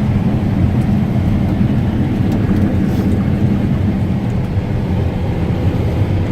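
Steady low drone of a harvesting machine's engine and drivetrain running, heard inside the cab.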